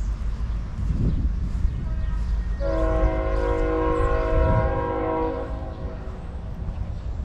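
A train air horn sounds one long blast of about three seconds, several steady tones together forming a chord.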